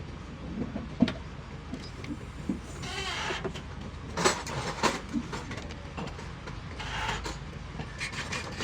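Workshop background noise: a steady low hum with scattered knocks and clicks, and brief swells of noise about 3 and 7 seconds in.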